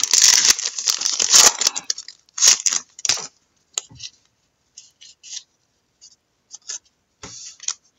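Trading cards being handled and slid against one another: about two seconds of steady papery rustling, then short scattered swishes and light taps as cards are flicked through one at a time.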